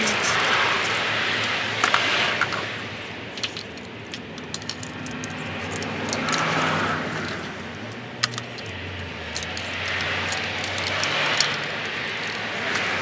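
Scattered clicks and light rattles of parts being handled in a car's engine bay, as ignition coils are pushed back down into the spark plug wells. Under them, background vehicle noise swells and fades.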